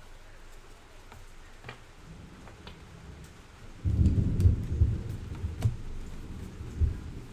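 Baseball cards being flipped through by hand, with faint clicks of card on card. About four seconds in, a loud, low, rumbling noise starts suddenly and goes on, rising and falling.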